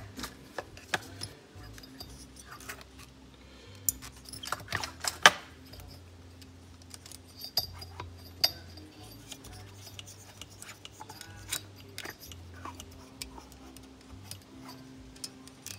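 Scattered clicks and light metallic taps from working a chainsaw's cylinder and piston by hand and feeding solder wire into the spark plug hole, with a few sharper clicks at the start and around four to five seconds in, over a low steady hum.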